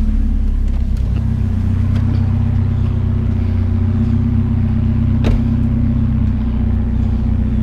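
Truck engine running steadily with a low, even drone, and a single sharp click about five seconds in.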